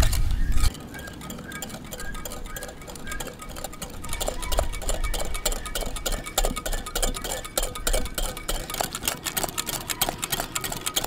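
Wire whisk beating eggs and sugar in a glass bowl until pale, its wires clicking against the glass in a quick, even rhythm. A low rumble runs through the first second and then cuts off suddenly.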